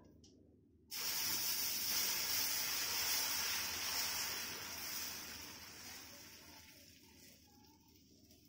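Dosa batter sizzling on a hot dosa griddle. The hiss starts suddenly about a second in as the batter hits the pan, then fades away over the next few seconds as the batter is spread thin.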